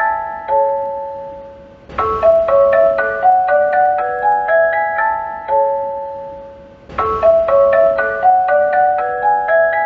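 Nagoya Municipal Subway depot-bound chime: a quick phrase of bell-like notes that rings out and starts over about every five seconds, about 2 s and 7 s in. It is the chime that goes with the announcement that the train is going out of service to the depot after reaching the terminus.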